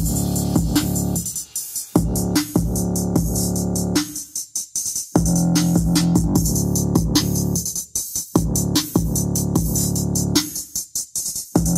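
Electronic music with a drum-machine beat and strong bass, played loud through Sony SSCS5 bookshelf speakers powered by a Douk Audio ST-01 PRO amplifier. The beat drops out briefly several times.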